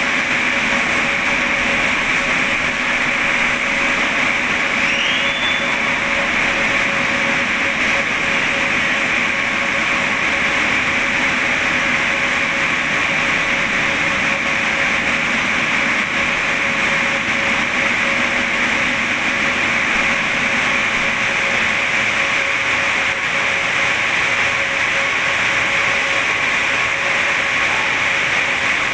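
Moskva-2020 metro train standing at the platform with its doors open, its onboard equipment giving off a steady hum with a constant whine.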